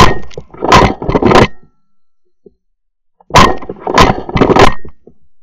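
Shotgun fired three times in quick succession at doves, then three times more about three seconds later: each shot a sharp, loud blast with a short tail.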